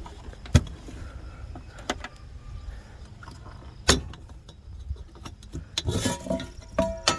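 Metal clicks and clanks from opening the air cleaner housing on a 1982 International S1900 dump truck: single sharp knocks about half a second, two and four seconds in, then a flurry of rattling and clinking with a brief metallic ring near the end.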